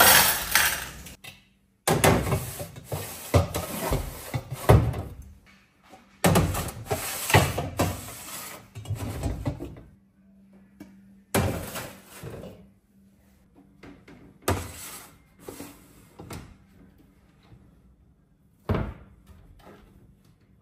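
Kitchenware being handled: dishes and utensils clattering and knocking against hard surfaces in several short busy stretches, broken by abrupt cuts.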